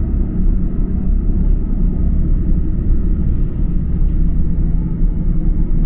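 Steady low rumble of the Gornergrat rack-railway train running along its track, heard from inside the carriage.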